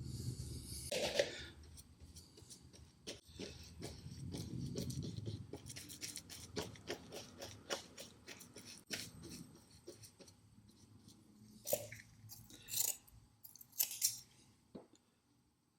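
Irregular scratching, scraping and clicking of small hand work, with a few louder brushing strokes about a second in and again near the end.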